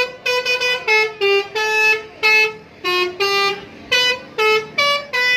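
Bus telolet horn, the multi-trumpet musical air horn of an Indonesian bus, playing a quick tune: a string of short honks at changing pitches, each with a bright, buzzy tone.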